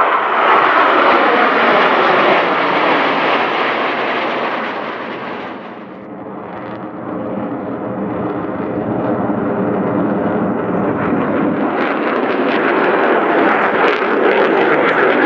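Blue Angels F/A-18 Hornet jets flying overhead in formation, loud jet engine noise with a falling pitch at first as they pass. The noise fades to its quietest about six seconds in, then builds again and turns rough and crackly toward the end.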